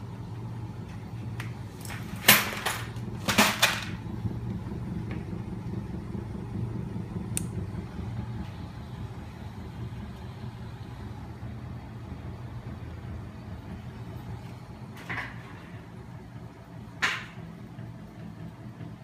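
Home-built magnet crankshaft machine driven by a small 12 V electric motor, running with a steady low hum. Several sharp knocks stand out over it, a cluster about two to four seconds in and two more near the end.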